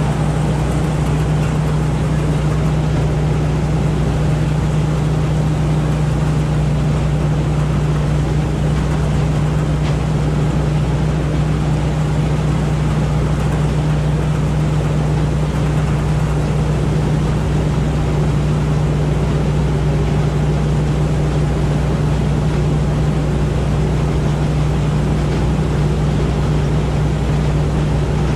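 Rice combine harvester running steadily as it cuts rice: an even engine and threshing drone with a strong low hum, no change in speed or load.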